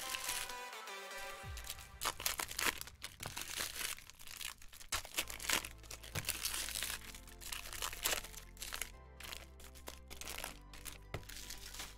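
Trading-card pack wrappers crinkling and crackling in quick, irregular bursts as packs are torn open and handled, over steady background music.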